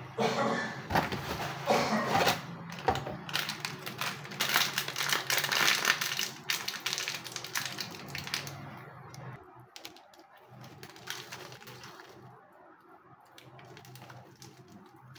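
Foil spice sachet crinkling and crackling as it is handled and torn open, dense for the first seven seconds or so, then quieter rustles as the masala is shaken out. A faint low steady hum sits underneath.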